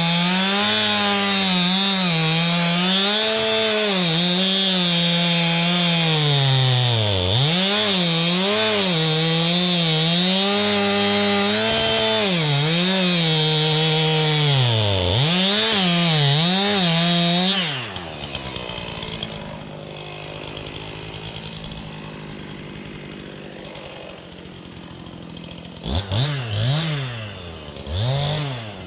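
Chainsaw cutting into a tree trunk, its engine pitch repeatedly dipping and recovering as the chain loads up in the cut. About two-thirds of the way through it drops to idle, then is revved briefly twice near the end.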